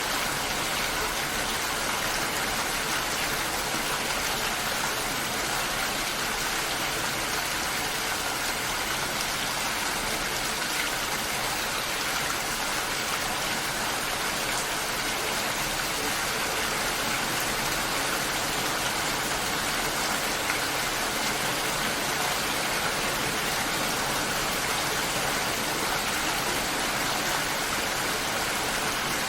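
Steady rain falling, an even, unbroken hiss with no separate drops, thunder or music standing out.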